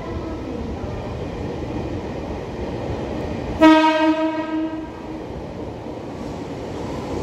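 Red Meitetsu electric train running in, sounding its horn once about three and a half seconds in: a single steady blast of a little over a second. The rumble of the running train carries on underneath.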